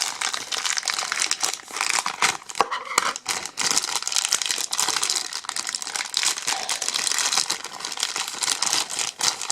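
Plastic packaging crinkling and rustling as hands unwrap a figure's stand from its bag, with dense irregular crackles.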